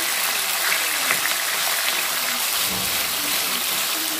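Pork pieces sizzling in a hot nonstick frying pan as they are stirred with a wooden spoon: a steady hiss with a few faint clicks.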